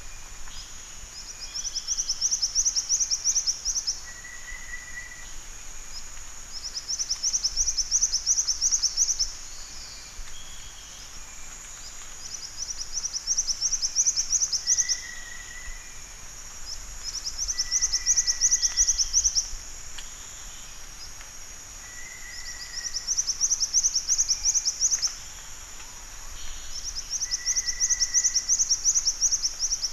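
Black-winged flycatcher-shrike singing: rapid high trills about two seconds long, repeated roughly every five seconds, with short lower notes between them, over a steady high hiss.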